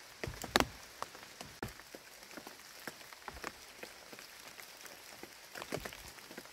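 Rainwater dripping off the corner of a wet tarp: irregular drops splashing, with one louder splash about half a second in, over a faint patter of rain.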